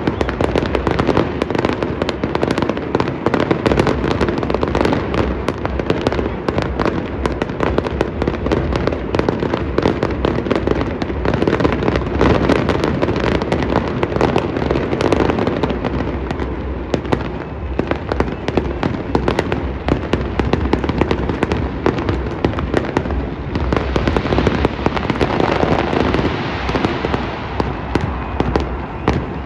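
A dense fireworks barrage: many overlapping bangs and crackles with no break, easing a little about two-thirds through and then building again.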